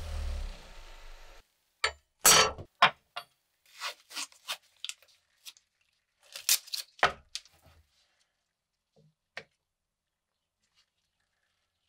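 A bench buffer's motor hums briefly and cuts off about a second and a half in. Then painter's tape is pulled off its roll and torn in a series of short rips over several seconds, followed by a couple of faint clicks.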